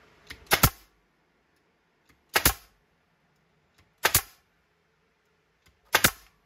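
Pneumatic brad nailer firing four times, roughly every two seconds, each shot a sharp double snap as it drives 1¼-inch brads into pine boards.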